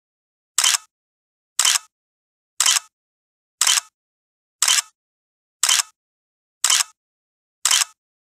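Camera shutter clicks, one a second, eight in all, each a short sharp click with dead silence between.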